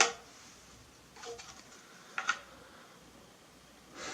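Handling knocks as the stock is worked free of a Huben K1 air rifle's action: a sharp click at the start, then two softer knocks about a second and two seconds in.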